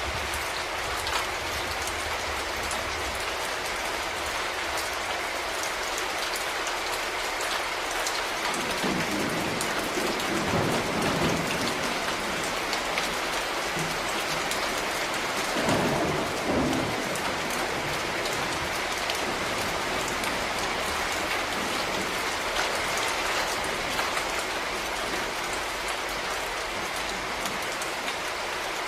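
Steady rain falling, with low thunder rumbling twice: once about a third of the way in and again about halfway through.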